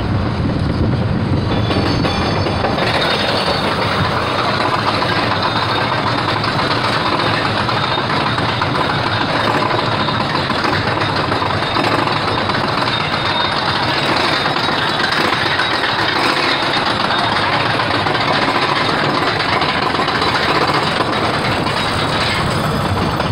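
Dahlonega Mine Train roller coaster train running on its steel track, a steady rumble and clatter of wheels and cars.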